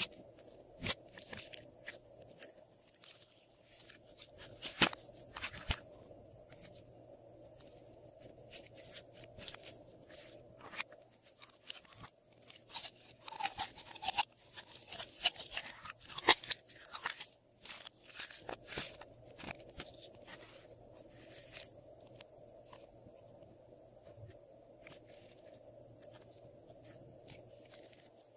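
Glossy slime being mixed and squished by hand, with irregular crunchy crackles and sticky pops, busiest in the middle stretch.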